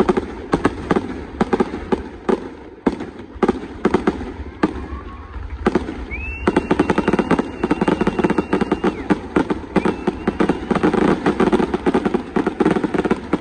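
Fireworks going off in quick succession, sharp bangs and crackles that grow denser about six seconds in. A whistle rises and holds for about three seconds amid the bursts, with a fainter whistle shortly after.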